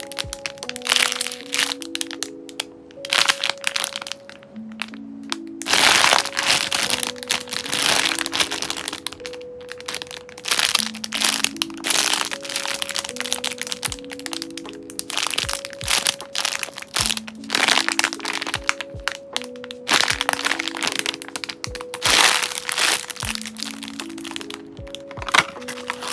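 Clear plastic bags crinkling and crackling in irregular bursts as foam squishy toys sealed inside them are squeezed and handled, over background music with a simple repeating melody.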